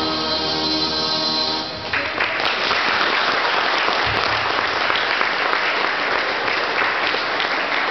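Figure-skating program music ends about two seconds in, and an audience breaks into steady applause.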